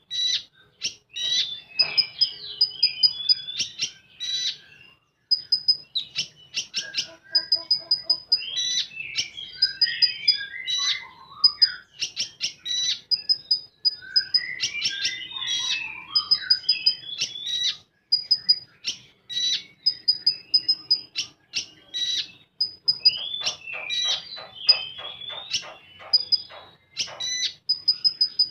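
Konin songbird singing a rapid, varied song: strings of high, quickly repeated chips with warbled, twisting phrases between them, and a fast run of clipped notes near the end.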